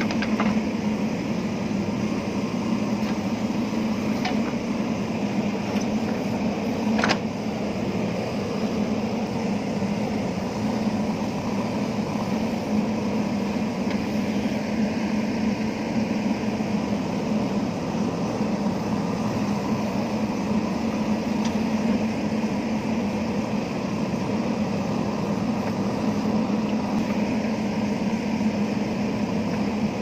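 JCB backhoe loader's diesel engine running steadily under load with a constant low hum as the backhoe bucket digs into stony soil. A few sharp knocks cut through it, the loudest about seven seconds in.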